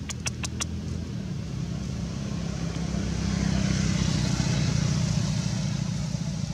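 Engine of a passing motor vehicle: a steady low drone that grows louder from about halfway through and eases off near the end. A quick run of four sharp clicks at the very start.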